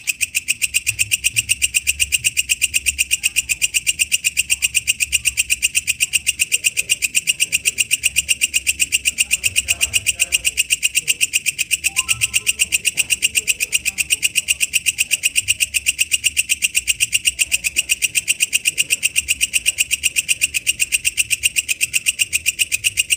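Walang kecek katydid (bush cricket) calling: a steady, evenly spaced train of sharp, high ticks at about five a second.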